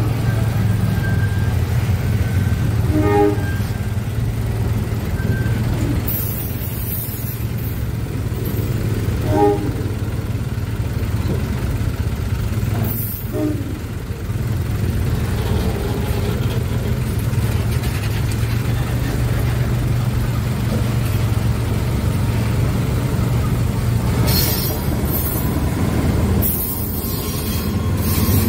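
Freight train of four-axle fuel tank wagons rolling past close by: a steady low rumble of wheels on rail, with a few brief pitched squeals. Near the end a louder hissing rush comes in as the diesel-electric locomotive comes alongside.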